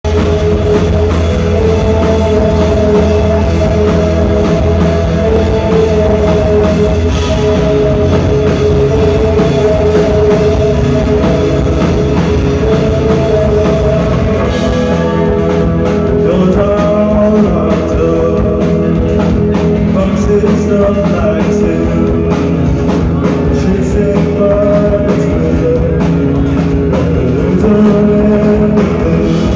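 Live rock band playing loud and steady through a club PA: electric guitars, bass and drum kit, with a sung vocal, heard from the crowd.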